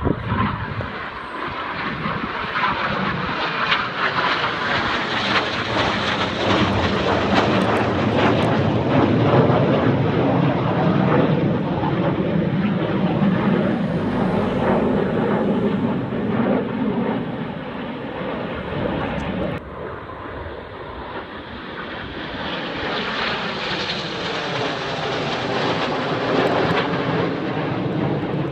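Jet engines of a formation of display jets flying past overhead: a loud rush of noise with sweeping changes in tone as the aircraft move across the sky. It drops suddenly about two-thirds of the way through, then builds again as the jets come round once more.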